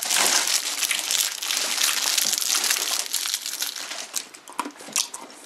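Plastic candy wrappers crinkling as they are handled. The crinkling is dense for about four seconds, then thins to a few scattered crackles.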